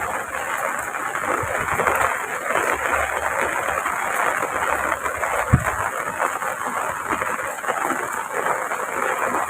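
Heavy rain falling steadily, with a faint low rumble partway through and a single short low thump about five and a half seconds in.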